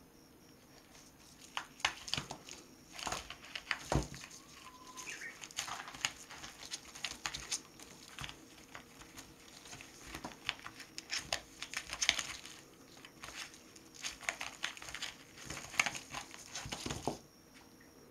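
Newspaper crinkling and crackling in quick, irregular scuffles as a kitten pounces and scrambles over it. The scuffling stops about a second before the end.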